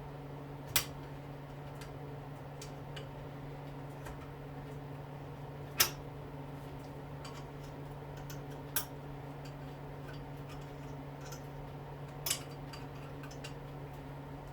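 Metal tools clicking and ticking against a small dishwasher motor while its eyelet retaining clips are worked loose. Four sharper clicks come a few seconds apart, over a steady low hum.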